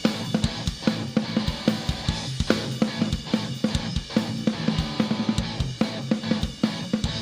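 Live rock band in an instrumental passage without vocals: the drum kit plays a steady beat of kick drum, snare and cymbals over low sustained notes underneath.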